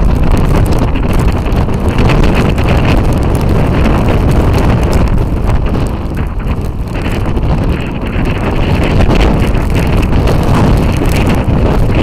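Strong storm wind buffeting the microphone: a loud, unbroken rumbling roar that eases slightly for a moment in the middle.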